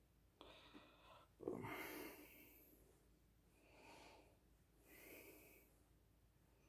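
A few soft, breathy puffs of a person's breath, the loudest about one and a half seconds in, with fainter ones about four and five seconds in.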